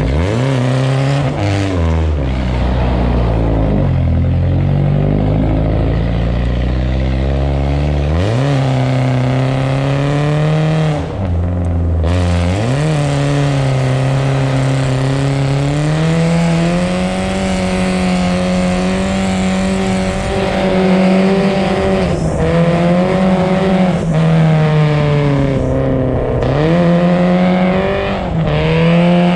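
BMW engine revving hard while the car drifts on ice. The pitch sweeps sharply up three times in the first half, then holds high with a few brief dips near the end.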